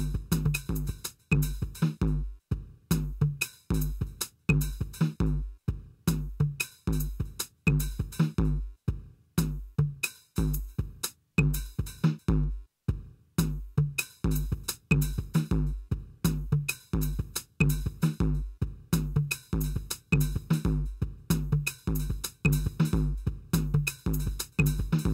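Software drum machine (D-Lusion Drum Station DT-010) playing a looped electronic beat of deep kicks and sharp snare and hi-hat hits. The pattern slows in the first half, then speeds up as the tempo knob is turned.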